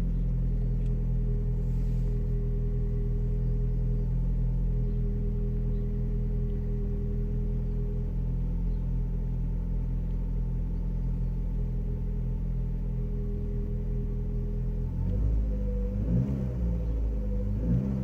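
Opel Corsa Z12XE 1.2-litre 16-valve four-cylinder petrol engine idling steadily just after a cold start, its revs rising and falling near the end. The freshly rebuilt engine knocks when cold, which the owner suspects comes from the oil pump or its chain, or from loose rod cap bolts.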